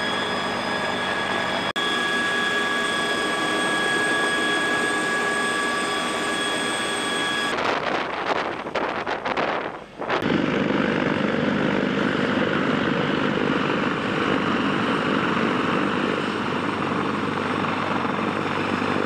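Sikorsky CH-53K King Stallion heavy-lift helicopter in flight. At first its turbines whine in several steady high tones over the rotor noise. About ten seconds in, the sound changes abruptly to a dense, steady rotor noise without the whine.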